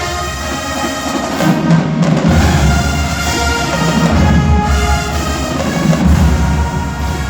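HBCU-style marching band playing loudly: a brass section over a heavy, pulsing low bass and drums.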